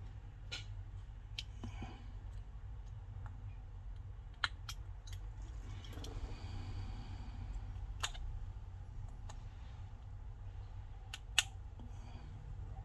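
Scattered small sharp clicks and a brief soft scrape of a flat-blade screwdriver picking broken camera-lens glass fragments out of a phone's rear camera ring, over a low steady hum.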